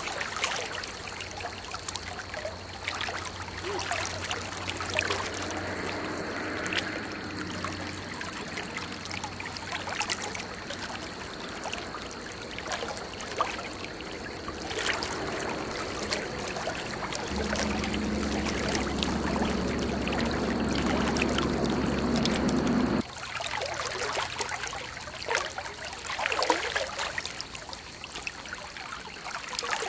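River water flowing and rushing over a shallow riffle, a steady wash of noise. A low steady hum joins it in the second half and cuts off suddenly.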